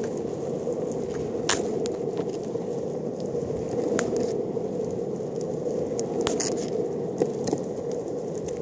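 Longboard wheels rolling over a tarmac path: a steady low rumble, broken by a few sharp clicks and ticks as the wheels pass over grit and small bumps.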